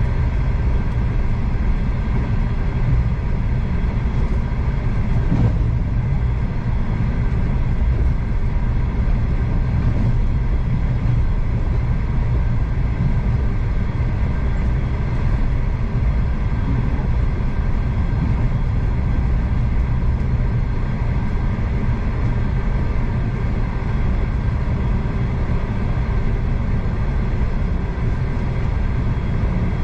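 V/Line passenger train running at speed, heard from inside the carriage: a steady low rumble of wheels on rail with a faint steady whine, and a light knock about five seconds in.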